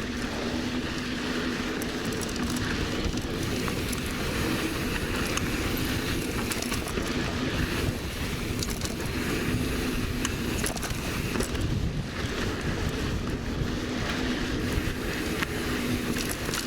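Mountain bike rolling downhill on a dirt trail: steady tyre rumble and rattle with wind noise on the microphone, and a steady buzz that comes and goes.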